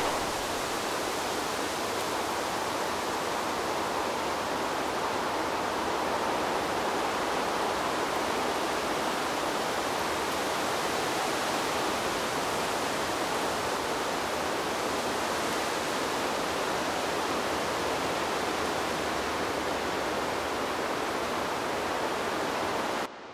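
A steady, even rushing hiss that does not change. It cuts off suddenly near the end.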